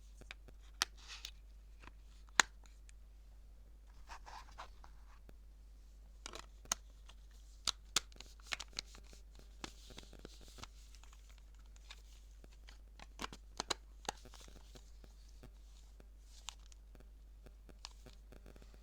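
Handling noise: faint, irregular clicks and taps with light rustling, a dozen or so sharp taps scattered throughout; no ringtone plays.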